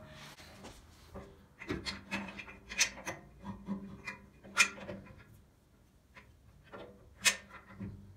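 Cast-iron table of a Grizzly G0555LX 14-inch bandsaw being worked onto its trunnion: irregular scraping and rubbing of metal on metal, with several sharp knocks, the loudest about four and a half and seven seconds in.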